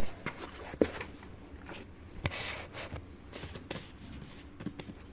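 Sheet of origami paper being handled: scattered faint rustles and light taps, with one short louder rustle about two and a half seconds in.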